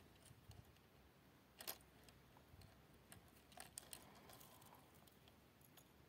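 Near silence with a few faint, light clicks and ticks from hands working at a fiber-optic splice closure's plastic splice tray and fiber tubes. The clearest click comes about one and a half seconds in, and a small cluster follows near the middle.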